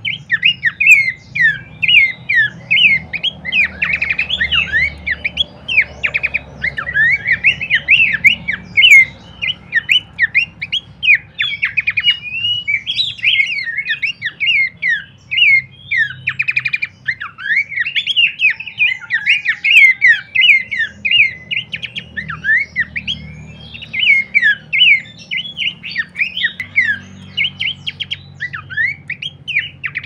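Pelanduk semak babbler calling in a fast, unbroken stream of short, sharp chirping notes, several a second, loud and agitated-sounding.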